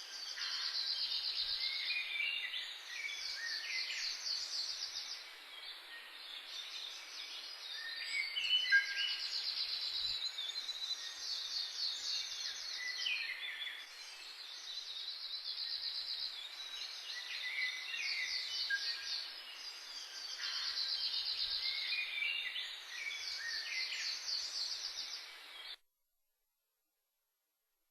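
Songbirds singing: fast, buzzy trilled phrases repeated every few seconds, mixed with shorter lower chirps over a steady background hiss. The recording cuts off suddenly near the end.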